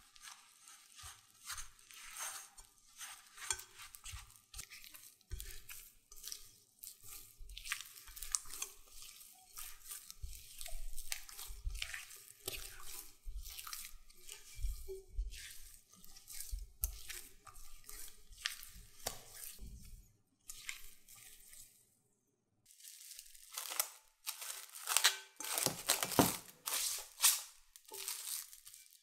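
Hands kneading sticky dough in a glass bowl, with irregular soft sticky squeezes and low thumps. In the last few seconds, plastic cling film crinkles loudly as it is stretched over the bowl.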